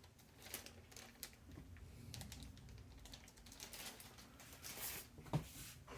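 Faint, scattered clicks and rattles of a Lenovo ThinkPad T430s laptop keyboard's keys under the fingers as the keyboard is pressed and pushed forward to free it from the laptop, with a slightly louder click near the end.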